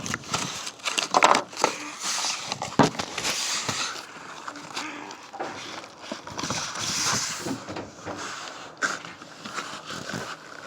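Shipping packaging being handled and torn open: irregular rustling, crinkling and tearing with scattered clicks.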